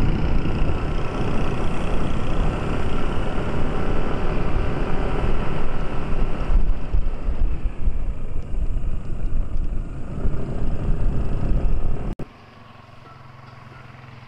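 Loud engine and wind noise of a moving road vehicle, heard from on board. About twelve seconds in it cuts off abruptly to a much quieter steady low hum.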